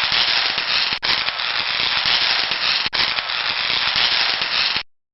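Loud, dense crackling hiss like static, with two brief dropouts, cutting off abruptly near the end.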